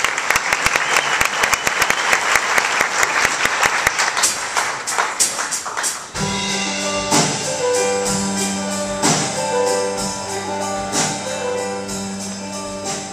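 Audience applauding for about six seconds. Then an instrumental show-choir intro starts, with held chords over a steady drum beat.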